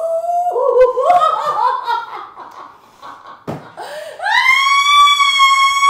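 A woman's high-pitched vocalizing: broken, cackling laughter, then about four seconds in a long, high shriek held at one pitch.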